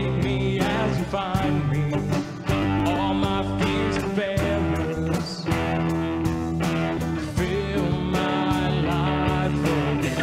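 Live church worship band music with guitar over sustained chords, a wavering melody line and a steady beat.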